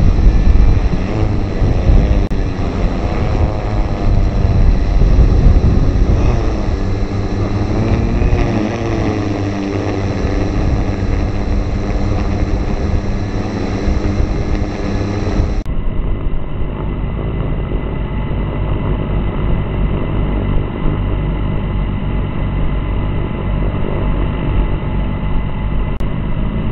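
Multicopter drone's electric motors and propellers running steadily, heard from the camera it carries, with a heavy low rumble. The motor pitch wavers up and down during the first half.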